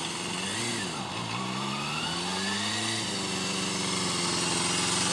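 Yamaha FZR250's small four-cylinder engine revving up and falling back twice as the motorcycle rides slowly around, then running at a steady speed from about three seconds in. It grows louder as the bike comes closer.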